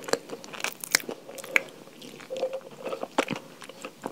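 A person chewing a mouthful of chalk: irregular, sharp crunches and clicks as it breaks up between the teeth.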